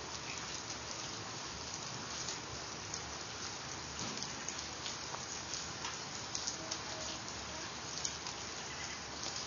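Heavy rain falling steadily, with many sharp ticks of individual drops hitting nearby surfaces.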